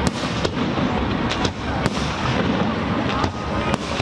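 Aerial fireworks display going off: about half a dozen sharp bangs at uneven intervals over a continuous dense rumble and hiss of further bursts.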